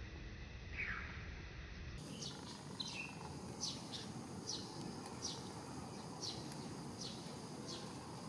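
A bird calling over steady outdoor background noise: short, high notes falling in pitch, repeated a little more than once a second. Before them, about a second in, comes a single lower falling chirp.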